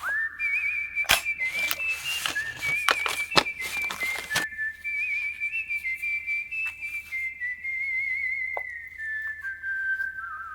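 A long whistled tone with a quick warble, drifting slowly lower. Over the first four and a half seconds it is crossed by several sharp cracks, the loudest about one and three and a half seconds in, which fit toy cap gun caps going off.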